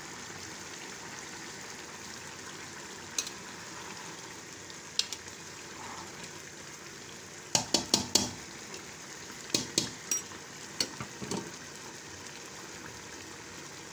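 Rice and beef pulao simmering in a metal pot with a steady bubbling hiss as the last of the cooking water boils off. Sharp metal clinks of a slotted spoon against the pot cut in, a quick run of four about halfway through and a few more soon after.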